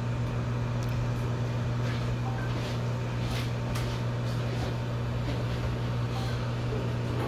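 Hot-air rework station blowing steadily onto a graphics card's memory chip at about 420 °C to melt its factory solder for removal, a constant blower hiss over a low hum, with a few faint ticks.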